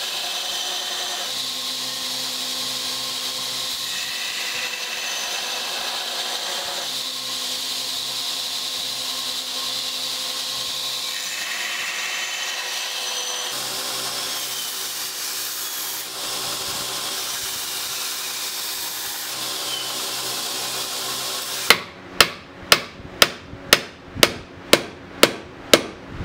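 Belt grinder running under load, sanding a wooden hatchet handle and then grinding the steel hatchet head. About three-quarters of the way through the grinding stops, and some eleven sharp knocks follow at about two a second as the hatchet head is seated on its handle against an anvil.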